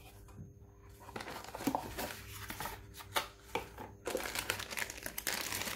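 Unboxing rustle: scattered light rustles and knocks, then from about four seconds in a dense crinkling of the plastic bags wrapped around the accessory cables as hands rummage through them.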